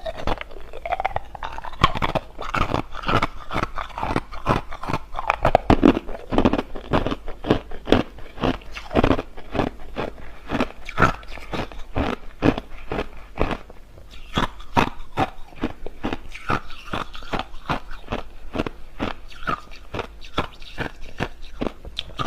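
A person biting and chewing clear, hard crushed ice, making many sharp crunches in quick succession.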